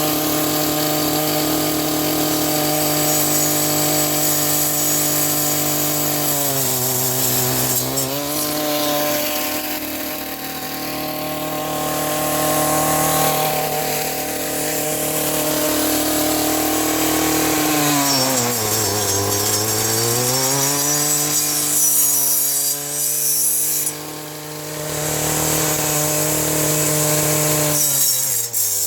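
Stihl brush cutter with a steel brush-cutter blade running at high revs, cutting saplings and brush. Its engine note sags and recovers a few times as the blade bogs down in heavier growth.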